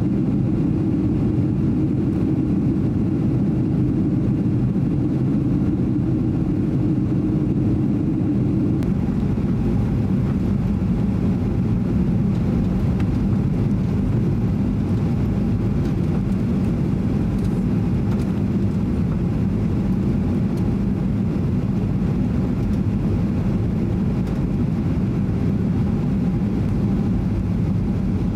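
Steady low rumble of engine and airflow noise heard inside the cabin of a Boeing 737-800 on its landing approach, its CFM56-7B engines running and flaps extended. The pitch of the rumble shifts slightly about nine seconds in.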